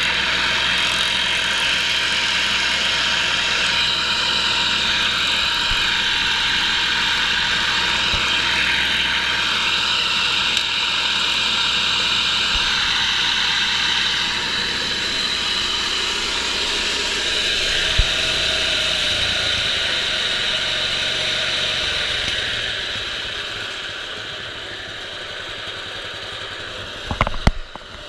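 Camon C50i disc wood chipper running at speed, driven by its Honda GX160 single-cylinder engine, on a test run after a new blade and anvil and a blade gap set to about 40 thou. One sharp knock comes about two-thirds of the way in, the sound drops noticeably quieter a few seconds later, and a few sharp clatters come near the end.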